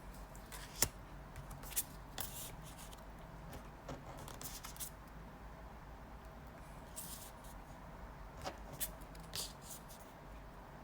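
Light handling noise close to the microphone: scattered small clicks and a few brief rustles, about a dozen in all, over quiet room tone.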